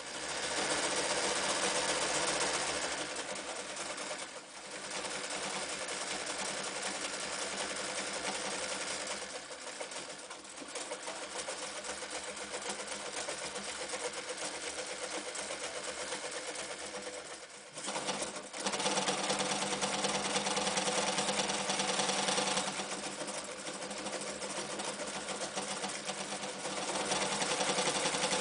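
Janome New Home 552 electric sewing machine running steadily as it stitches through eight layers of denim, with short slowdowns. It stops briefly about two-thirds of the way through, then runs again, sewing through layers of leather.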